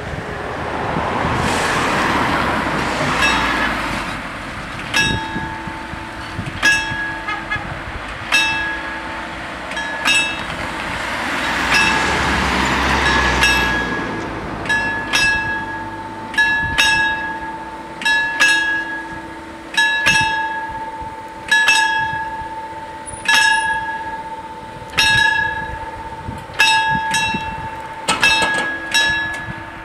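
Twin warning bells of an Italian FS 64-type level crossing ringing, one strike about every second and a half, each leaving a ringing tone, while the crossing is activated. Road vehicles swell past twice in the first half.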